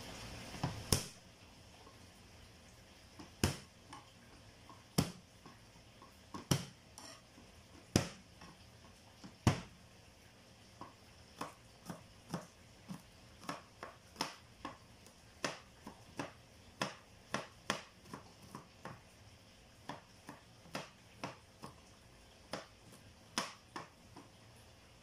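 Chef's knife chopping garlic cloves on a plastic cutting board, the blade knocking on the board. First single heavy strokes about every second and a half, then from about ten seconds in a quicker run of lighter chops, about two a second, as the garlic is minced.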